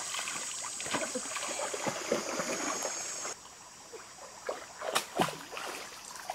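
Shallow stream water splashing and sloshing as hands churn through it. About three seconds in it drops to a quieter trickle, broken by a couple of sharp splashes near the end.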